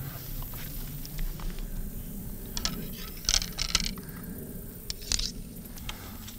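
Rustling and light clicking from movement in tall grass: clothing brushing and compound-bow gear being handled, in short irregular bursts, busiest in the middle.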